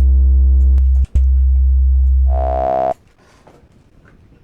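Formant-oscillator software synthesizer holding a sustained low note with a strong deep bass and a stack of overtones. About a second in the upper overtones fade away, leaving mostly the deep tone, which matches the synth being faded toward its fundamental sine wave; there is a brief dropout just after. The overtones swell back just before the note cuts off suddenly about three seconds in.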